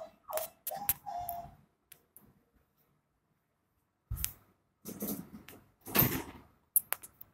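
Hotel delivery robot chirping: two short falling electronic chirps and a held tone in the first second and a half. Then a knock, a couple of seconds of rough rustling, clattering noise and a few sharp clicks near the end.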